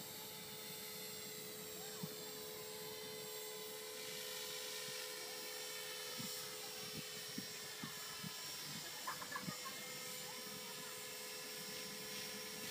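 Align T-REX 450 electric RC helicopter flying at a distance: a faint, steady whine from its motor and rotor. A few light ticks sound about halfway through.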